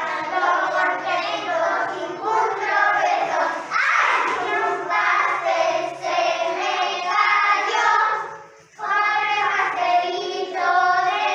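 A group of young children singing together, with a brief break between phrases about eight seconds in.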